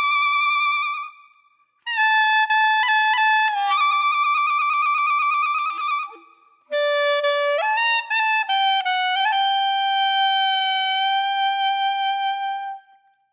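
Background music: a single wind instrument playing a slow melody of long held notes, in three phrases with brief pauses between them. The last note is held for several seconds before it fades.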